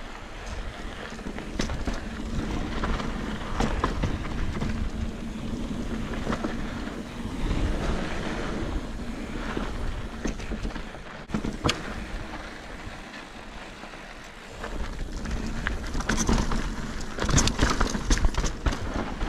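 Mountain bike riding down a rough trail: tyres on dirt, and the bike rattling with sharp knocks over rocks and roots, the knocks thickest near the end, under a steady rumble of wind noise.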